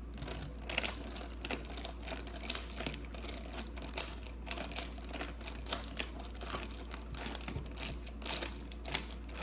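Tape-covered plastic and paper crinkling and clicking as it is handled and squeezed, in quick, irregular crackles over a steady low hum.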